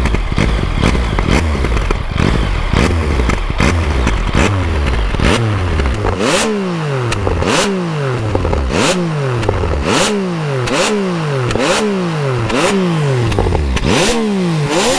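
Yamaha XSR900's three-cylinder engine revved on the spot through a MIVV Oval carbon exhaust. It holds raised revs with crackling for about six seconds, then is blipped about once a second, each rev dropping back with a sharp pop from the exhaust as it spits flames.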